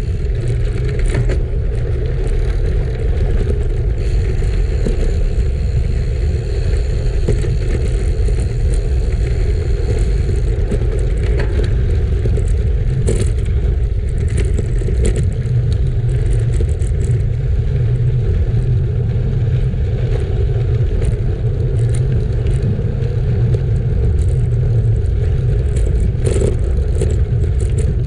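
Road bike rolling over gravel: a steady rumble of wind on the microphone and tyres crunching on loose stones, with scattered clicks and rattles from the bike and stones.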